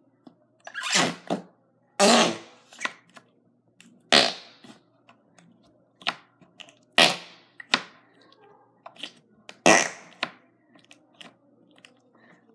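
Flarp noise putty pushed into its small cup, letting out a series of short fart-like noises, about six loud ones with smaller ones between.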